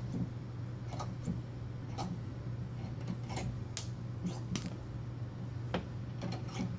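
A bench vise being cranked shut on a plastic K-cup coffee pod. Sharp clicks and clacks, one or two a second, come from the vise's sliding steel handle bar and from the pod cracking as the jaws close. A steady low hum runs underneath.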